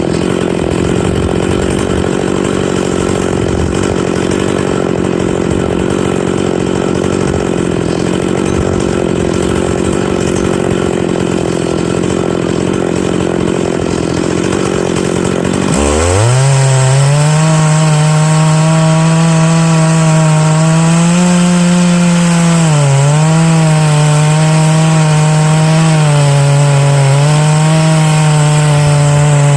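Big-bore chainsaw at full throttle on a chainsaw mill, ripping through oak. About halfway through, the engine note dips sharply, then settles into a louder, steadier pitch that wavers a little as the cut goes on.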